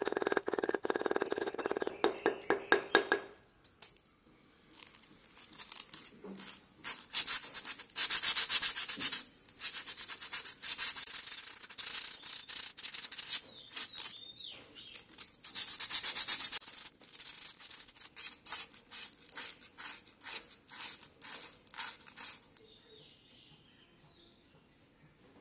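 Rapid hammer strikes on a steel welding rod laid across a hammer head, cracking off its flux coating, for the first three seconds or so. Then long runs of quick scraping strokes along the bare rod, stripping off the remaining flux, which stop near the end.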